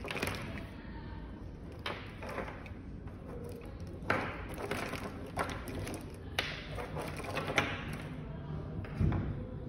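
Plastic light-string cables rustling as they are handled, with several sharp clicks and knocks of plastic connectors being fitted together against a tabletop, and a dull thud near the end.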